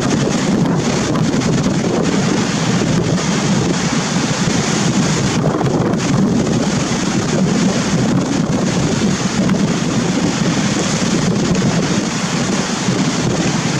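Strong wind buffeting the microphone over the steady rush of a rough sea with breaking waves.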